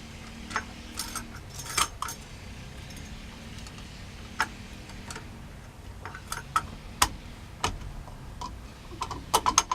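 Light metallic clicks and clinks of keys and small metal parts being handled, scattered, with a quick run of clicks near the end.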